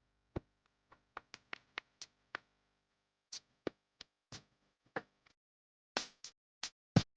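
An irregular series of short, sharp taps and knocks, about fifteen of them, with silence in between; the loudest comes near the end.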